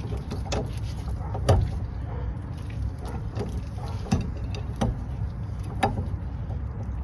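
Five or so sharp clicks and knocks of hand tools on the front wheel hub as its spindle nut is adjusted, the second one the loudest, over a steady low rumble.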